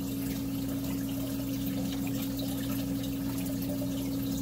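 Reef aquarium's circulating water trickling and splashing steadily, over the steady low hum of the running pumps.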